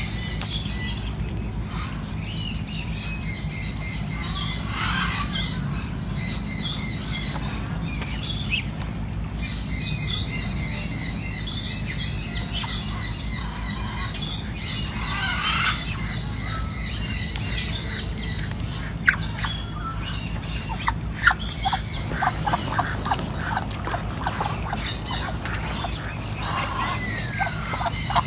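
Birds squawking and chirping over and over above a steady low hum, with a run of short sharp clicks in the second half.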